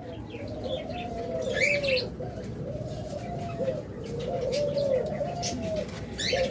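Dove cooing over and over, a string of soft coos that each rise and fall over about a second, with small cage birds chirping briefly now and then.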